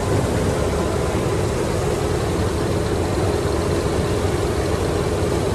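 Heavy farm machine's diesel engine running steadily under constant load, an even low drone with no change in pitch.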